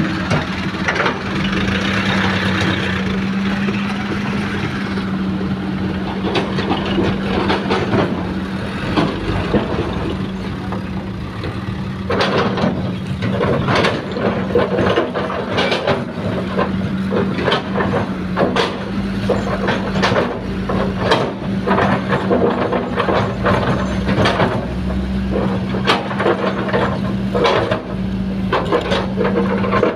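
Heavy diesel earthmoving machinery running steadily, with a hiss in the first few seconds. From about twelve seconds in comes a string of irregular knocks and clatter as the Hitachi excavator loads soil into a dump truck.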